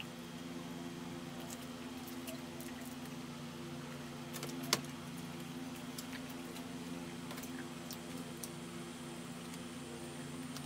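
Eating sounds from tearing fried chicken apart by hand and chewing: scattered small clicks and crackles, with one sharper click about four and a half seconds in. Under them runs a steady low hum.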